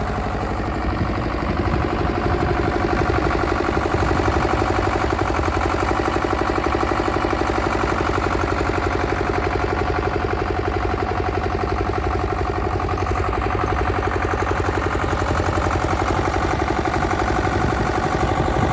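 Leeboy L1000T asphalt paver's engine running steadily at idle, with an even rhythmic pulse.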